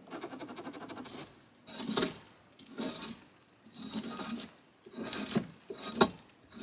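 Drawknife strokes peeling bark off a log. First comes a longer chattering stroke, then five rasping, scraping pulls about a second apart.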